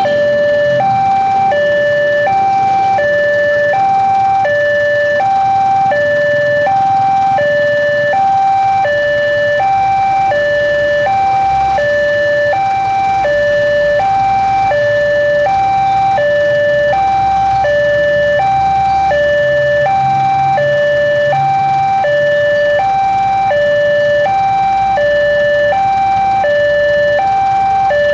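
Railway level-crossing warning alarm sounding, an electronic tone alternating steadily between a higher and a lower pitch, about one high-low pair a second: the crossing is closed with its barriers down for an approaching train.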